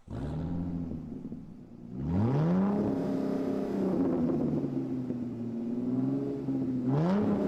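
Car engine revving: the pitch rises sharply about two seconds in, holds at a raised speed, and rises again near the end.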